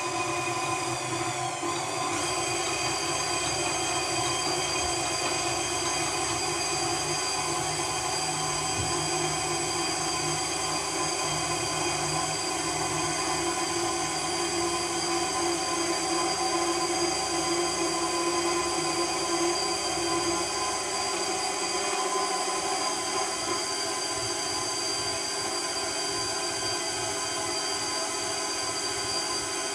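Electric meat grinder with a sausage-stuffing tube, switched on at the start and running steadily with a high motor and gear whine as sausage meat is pushed into the casing; the whine settles to a steady pitch within the first two seconds.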